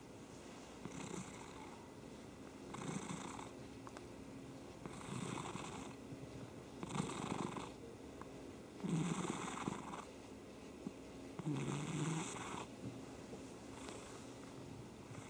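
Domestic cat purring, the purr swelling and easing in a steady rhythm about every two seconds with each breath.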